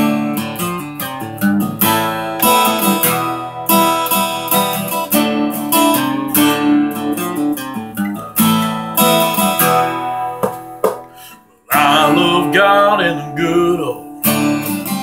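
Acoustic guitar strummed steadily, breaking off for a moment about twelve seconds in before the strumming starts again.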